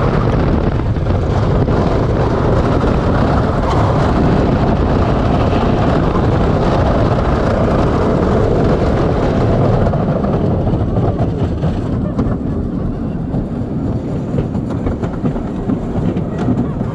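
Wodan, a GCI wooden roller coaster, heard from the front row: a loud, steady rumble and clatter of the train's wheels on the wooden track. It eases off after about ten seconds as the train slows, leaving more separate clacks.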